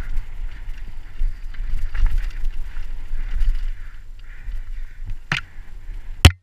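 Mountain bike descending a dirt singletrack, heard from a helmet camera: a steady low rumble of wind on the microphone and tyres on the trail, with the bike rattling over the bumps. Two sharp knocks come near the end, the second the loudest.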